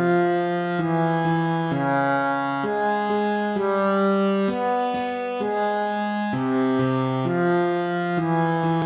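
Instrumental background music: a slow run of held chords, changing about once a second at an even level.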